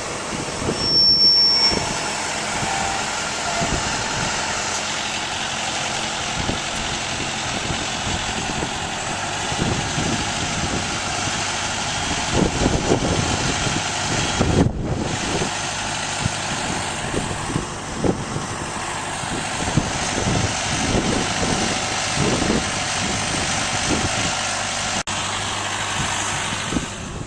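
Heavy farm machinery running steadily under load, with a short high beep about a second in and scattered knocks and rattles.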